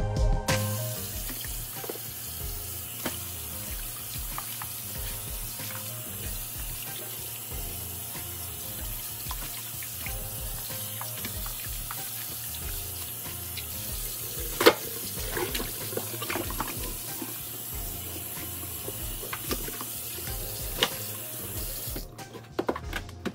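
Kitchen faucet running into a stainless steel sink as raw spare ribs are rinsed under it by hand, with occasional knocks and clatters against the sink, one sharp knock about two-thirds through. The water shuts off near the end.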